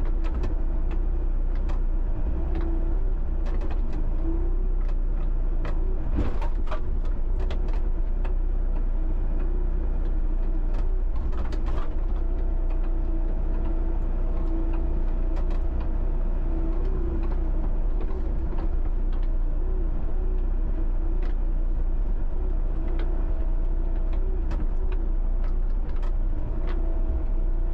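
John Deere 60D mini excavator's diesel engine running steadily with a constant hum, with a few sharp knocks, around six and eleven seconds in, from the machine at work.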